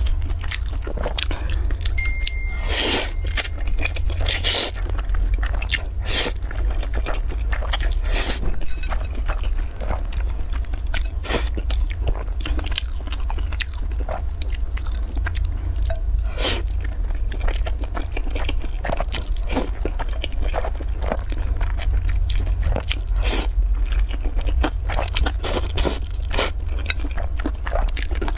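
Close-miked eating of noodles with chopsticks: chewing with many short, sharp mouth sounds scattered irregularly, over a steady low hum.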